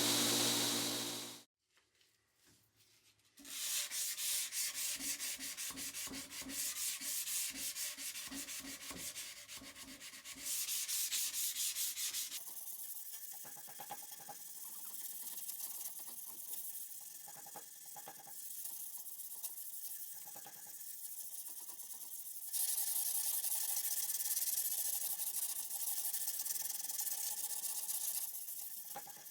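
Hand sanding of a spring-steel wakizashi blade after heat treat: sandpaper rubbed in quick back-and-forth strokes across the steel, working out the grinder scratches. It starts after a steady machine hum cuts off abruptly near the start and a short quiet gap.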